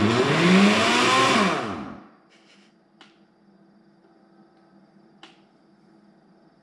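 Countertop blender motor run in a short burst on whole peeled bananas with no liquid: it speeds up and winds down again within about two seconds, then two faint clicks as the control buttons are pressed. Without liquid the bananas are not drawn into the blades.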